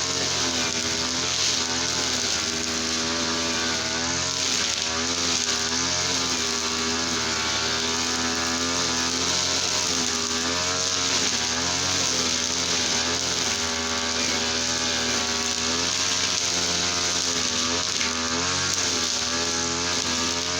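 Easyman TL33 two-stroke brush cutter running steadily at high revs, its pitch wavering up and down as the revs shift slightly.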